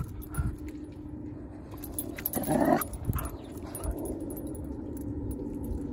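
Golden retriever puppy making a few short vocal sounds, the loudest about two and a half seconds in.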